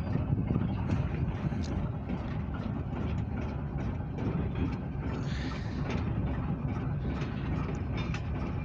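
Diesel locomotive running with a steady low rumble, with scattered light clicks and knocks from the moving train.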